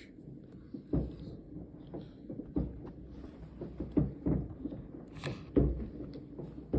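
New Year's fireworks going off in the distance: a string of irregular booming bangs, several seconds apart or in quick pairs, with a low rumble between them.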